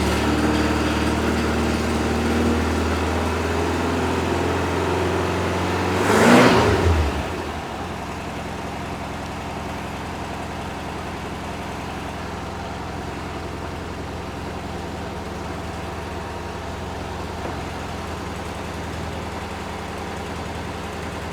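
Air-cooled flat-four engine of a 1974 VW bus running at raised revs. About six seconds in there is a brief loud rush, and then the engine settles to a slower, quieter idle.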